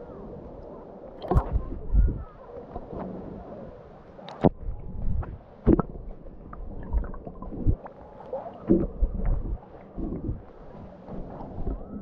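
Seawater sloshing and splashing in the shallows, in uneven bursts over a low rumble, with faint voices in the background.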